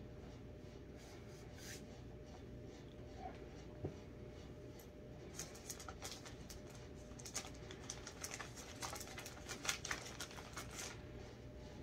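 Irregular rustling and light clicks of hands handling things, bunched from about five seconds in to near the end, over a steady low hum.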